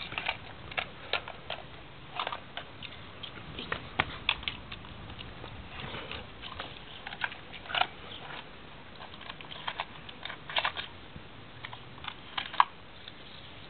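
Irregular light clicks and knocks of plastic Hot Wheels track pieces and die-cast toy cars being handled and set in place, with one sharper click near the end.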